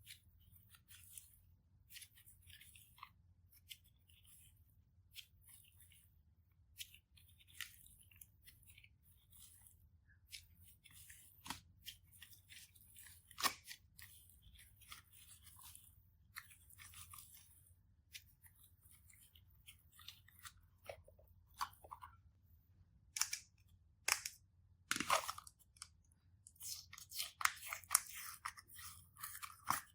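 Slime being handled and worked: scattered soft crackles and clicks that come thicker and louder near the end.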